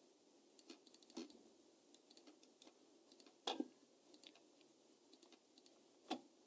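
Near silence with a few faint, sharp computer mouse clicks, the clearest about a second in, midway and near the end.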